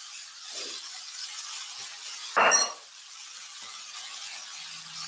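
Shrimp, bell peppers and onions sizzling steadily in a hot stainless skillet, with a single clink of dishware about halfway through.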